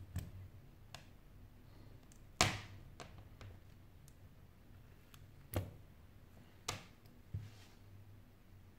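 Sony Xperia Z5 Compact smartphone being reassembled by hand: a string of irregular sharp clicks and taps as its hard plastic, metal and glass parts are handled and pressed together and set on the mat. The loudest click comes about two and a half seconds in.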